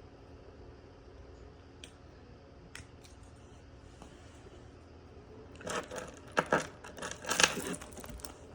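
Small hard clicks and clatters of a key fob's plastic case and metal key being handled, with a quick burst of sharp clicks starting about two thirds of the way in.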